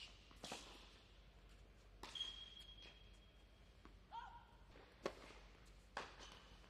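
Tennis ball being struck and bouncing on an indoor hard court during a point: a few faint, sharp knocks about a second apart, with a short high squeak in between.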